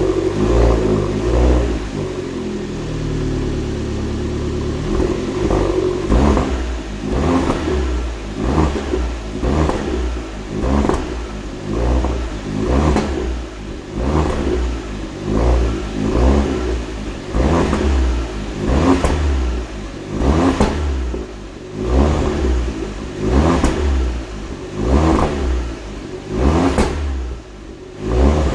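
Alfa Romeo MiTo QV's 1.4 turbo four-cylinder engine on its stock exhaust, being revved in short, repeated throttle blips about once a second after the revs fall away over the first few seconds.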